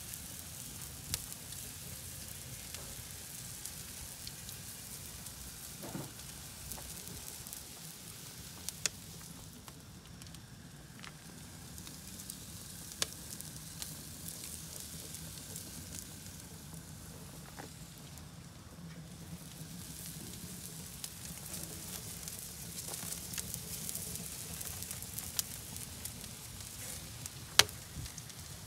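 Food sizzling on a barbecue grill over a wood fire, a steady hiss broken by scattered sharp crackles from the burning wood, one pop near the end louder than the rest.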